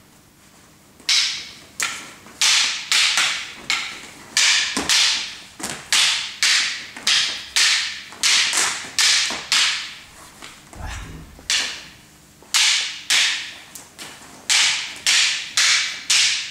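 Arnis fighting sticks and a training knife clacking against each other in a fast stick-and-knife sparring drill. The sharp hits come about one to two a second, each ringing briefly in the hall. A little after the middle the hits pause, with one low thud.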